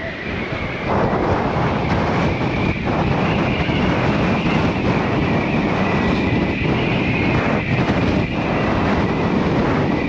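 Strong wind blowing hard across the microphone, a loud steady rush of noise.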